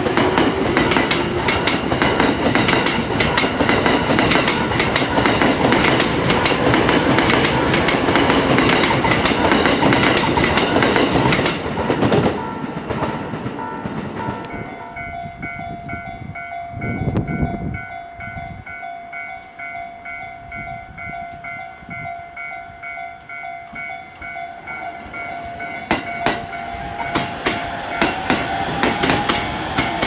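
JR E231-series commuter train running through the station, wheels clattering over the rail joints, with a level-crossing alarm ringing under it. About halfway the train noise falls away and a newer crossing alarm rings steadily, two different alarm tones sounding at once. Near the end a train comes through again, its wheels clacking over the joints.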